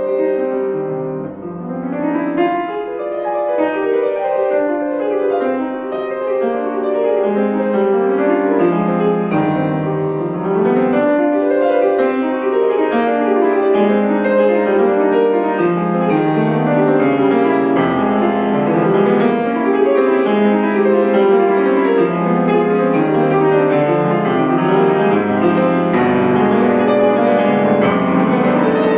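Piano playing a classical piece, a continuous flow of notes that swells louder about ten seconds in.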